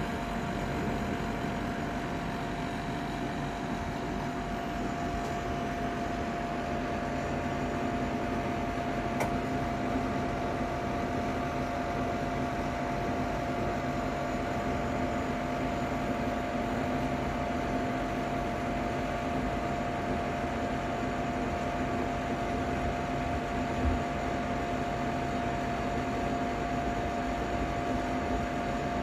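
Ninja Foodi 8-in-1 multicooker running with the unit still cold: a steady fan hum with a whine held at one pitch. A light click about nine seconds in and a low thump late on.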